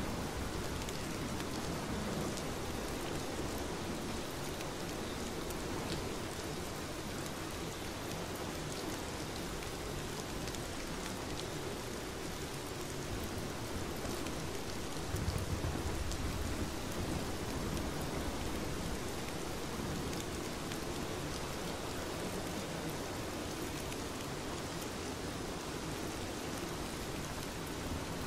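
Steady rain falling, with a brief low rumble about halfway through.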